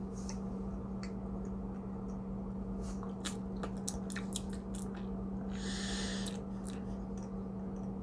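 A person chewing a small bite of raw plant-based burger patty: soft wet mouth clicks, bunched together around three to four seconds in, and a short breath about six seconds in. A steady low hum runs underneath.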